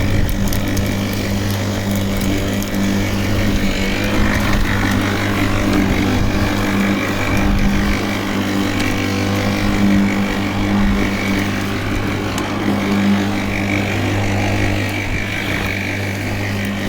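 WORX 40 cm cordless lawnmower running steadily as it cuts grass: a constant low electric-motor hum under the swish of the spinning blade.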